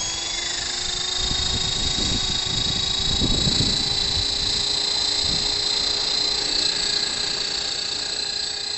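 Blade 400 electric RC helicopter's motor and rotor head whining at a high pitch; the whine rises slightly in the first second, then holds steady. Gusts of wind rumble on the microphone for a few seconds near the start.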